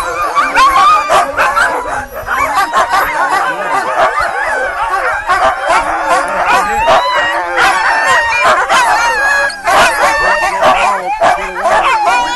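A team of harnessed sled dogs barking, yipping and howling all at once. Many wavering howls overlap with sharp barks in a loud, unbroken din. The dogs are excited and eager to start pulling the sled.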